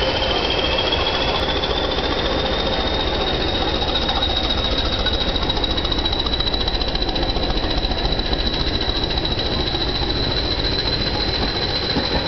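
English Electric Class 20 diesel locomotive passing close by under power, its eight-cylinder turbocharged engine running with a fast, rhythmic beat. A turbocharger whistle rises in pitch over the first couple of seconds and then holds steady.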